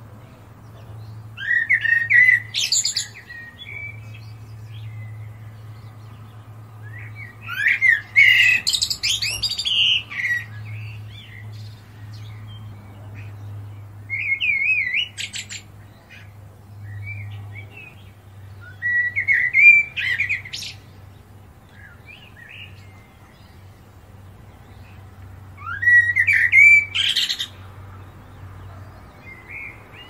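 European robin singing: five short, high warbling phrases, each a second or two long, separated by pauses of several seconds, over a steady low hum.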